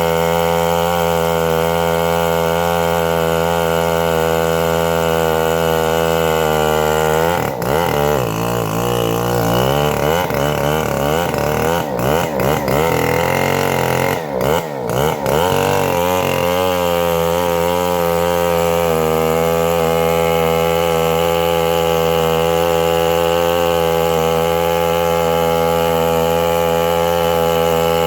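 Chainsaw running steadily, its engine speed wavering up and down for about eight seconds in the middle of the stretch, then settling steady again.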